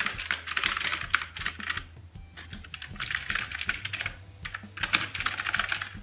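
Typing on an AULA Wind F2058 mechanical keyboard with clicky blue switches, in rapid flurries of key clicks broken by short pauses.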